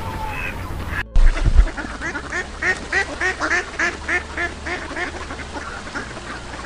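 Ducks quacking in a quick, steady run of about three quacks a second, with a low thump just after they begin.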